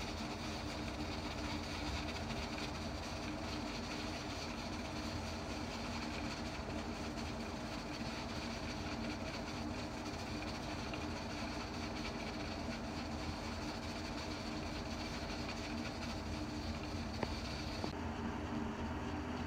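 Steady rumbling of a gas burner heating a closed aluminium pressure cooker while it builds up steam pressure, its whistle weight still seated.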